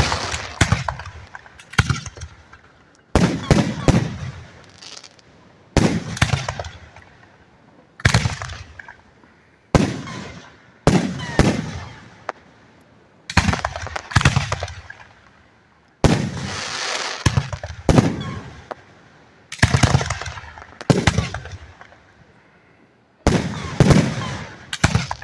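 Aerial firework shells bursting directly overhead: loud, sharp bangs one after another, every second or two, each trailing off in a fading rumble.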